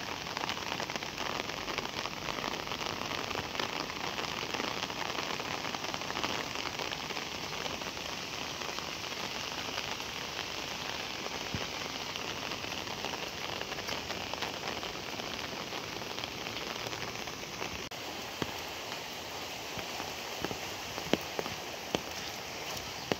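Heavy rain falling steadily on the floodwater of the paddy fields. A few sharp clicks come near the end.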